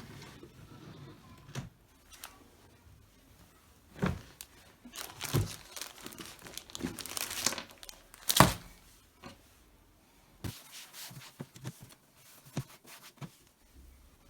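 Crinkling and rustling as items are handled while a drawer is sorted, broken by several light knocks; the sharpest knock comes about eight seconds in.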